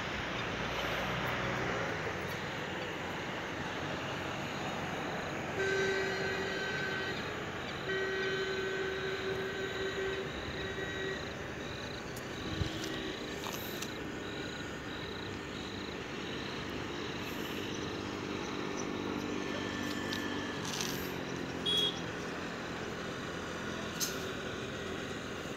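A horn sounds two long blasts, the first about six seconds in and a longer one from about eight seconds, over a steady background noise, followed by fainter drawn-out lower tones.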